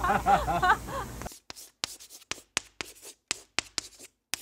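Voice-like pitched calls for about the first second, cut off suddenly. Then comes a run of short, irregular scratching or rubbing strokes, several a second.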